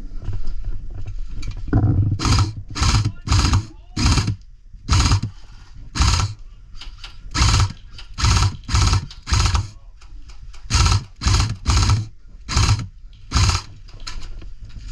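Hard, rapid breathing close to the microphone, about seventeen heavy breaths that each come with a low rumble of breath hitting the mic.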